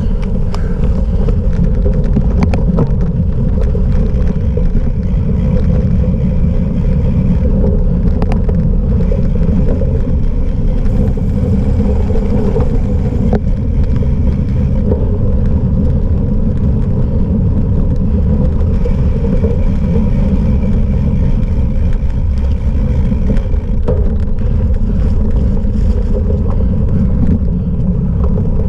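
Steady loud wind buffeting on the microphone over the rumble of a cyclocross bike being ridden across rough ground, with occasional light knocks and rattles.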